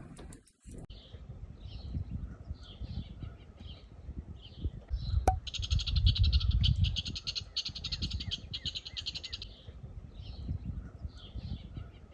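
A bird chirping repeatedly in short high notes. A fast buzzing trill runs for about four seconds in the middle. Low uneven rumbling sits underneath, with a single sharp click about five seconds in.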